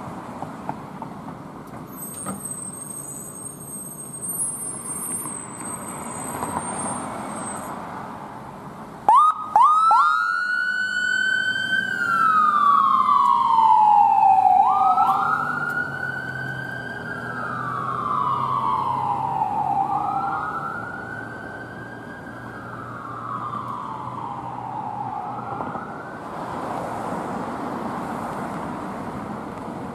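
An emergency vehicle's siren starts with a few short, sharp blasts. It then wails, rising quickly and falling slowly in pitch about three times, and fades out before the end. Passing road traffic runs underneath.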